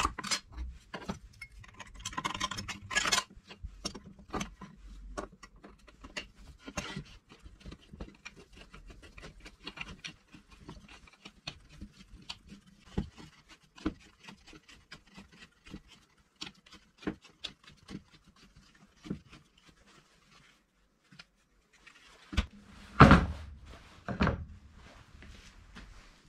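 Scattered light clicks and taps of tools and plywood being handled on a workbench, with a few louder knocks near the end.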